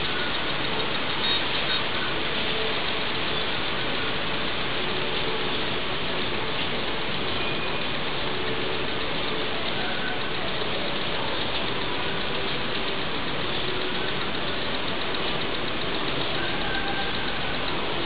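Steady, even hiss of noise with a few faint brief tones under it.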